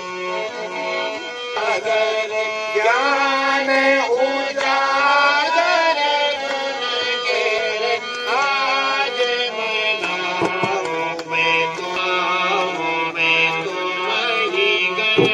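Live traditional music: a harmonium playing a melody with tabla drumming.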